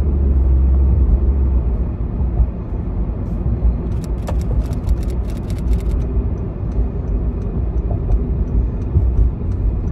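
Car driving, heard from inside the cabin: a steady low rumble of road and engine noise. About four seconds in, a burst of rapid clattering clicks lasts roughly two seconds.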